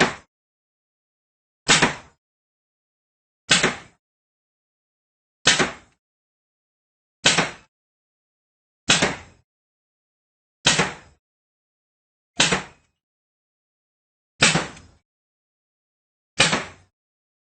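Pneumatic air rifle firing single shots, one sharp crack about every two seconds, each dying away quickly, with silence in between.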